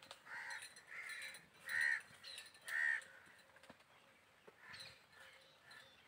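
A crow cawing: four short caws in the first three seconds, the last two loudest, then fainter calls near the end.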